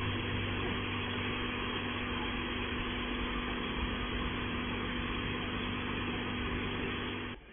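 Touchless automatic car wash at work: high-pressure water jets spraying over a car, with a steady machine hum from the wash's pump. The sound cuts off near the end.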